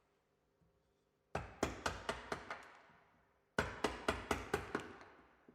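A mallet striking a bevel-edged chisel to chop out waste wood from a dovetail housing in timber: two runs of quick, sharp strikes, about four a second, with a short pause between them.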